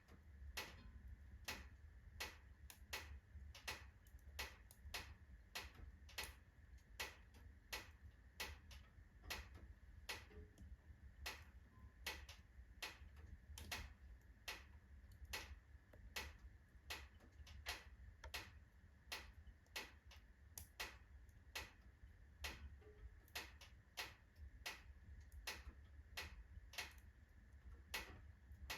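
Oak logs burning in a fireplace, crackling faintly with frequent sharp snaps a few times a second.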